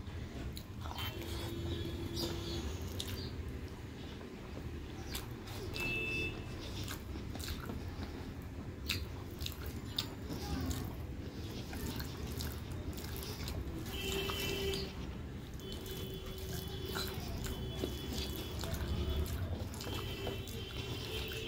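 Eating sounds: fingers mixing rice and greens on a metal plate and chewing, heard as scattered small clicks over a steady low hum.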